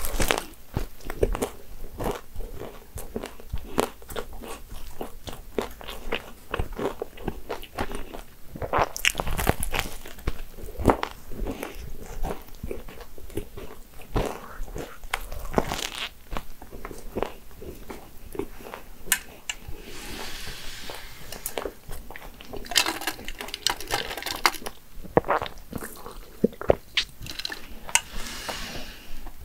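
Close-up eating of an almond croissant: the flaky pastry and its sliced-almond topping crunch and crackle with each bite, followed by chewing, in a steady run of crisp little cracks.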